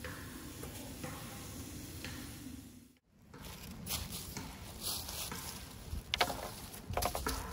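Chicken sizzling on a cast-iron grill pan over a wood fire. After a break, dry fallen leaves and sticks crunch and crackle, with a couple of sharp cracks near the end.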